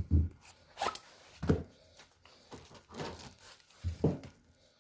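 Pistol magazines and a gear bag being handled: a few dull knocks about a second and a half apart, with rustling and scraping between them.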